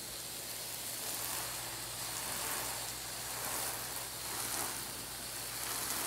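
Steady hiss of water spraying from the small holes of freshly switched-on drip irrigation lines, with a low steady hum underneath.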